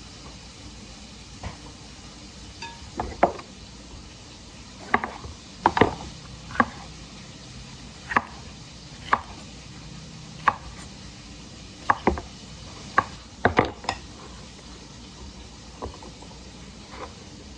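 A kitchen knife chopping vegetables on a cutting board: about twenty sharp, unevenly spaced strokes, fewer and fainter near the end.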